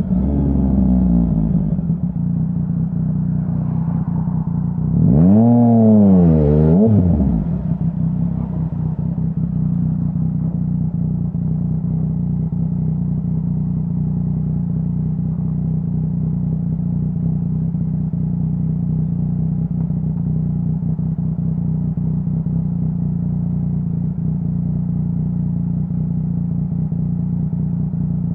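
2017 Yamaha Tracer 900's three-cylinder engine through a full Dominator HP3 aftermarket exhaust: revs falling away, then a quick double blip of the throttle about five seconds in, then a long steady idle.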